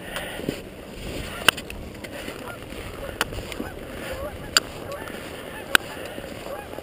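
Footsteps crunching on crusted snow, a sharp crunch every second or so over a steady background rush.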